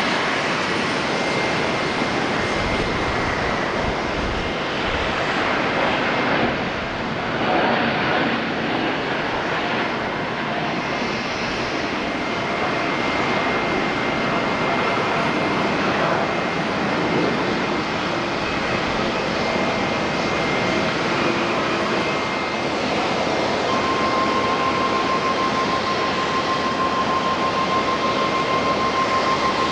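Jet airliner engines running, a steady loud rush of noise with a faint high whine; a second steady whine joins about three-quarters of the way through.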